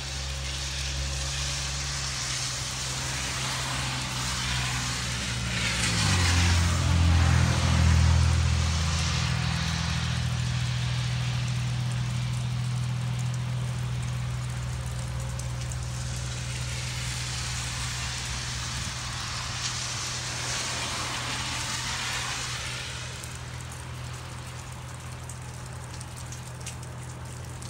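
Vehicles passing twice over a steady low engine hum; the noise swells and fades about six seconds in, the loudest moment, and again about twenty seconds in.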